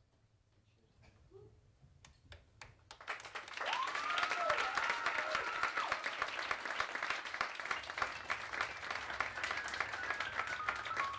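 Audience applauding: a few scattered claps about two seconds in swell into steady, dense applause, with one long rising cheer over it. A piano starts a falling run near the end.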